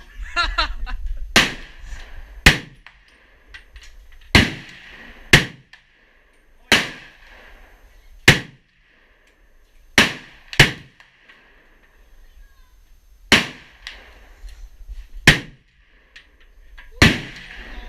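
Gunshots at a shooting range: about eleven single shots fired one at a time, irregularly spaced a second to a few seconds apart, each with a short echoing tail.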